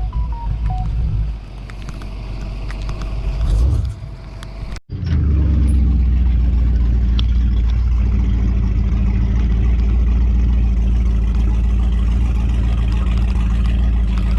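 A vehicle running on the road for the first few seconds. Then, after an abrupt cut about five seconds in, a bass boat's outboard motor runs steadily at speed.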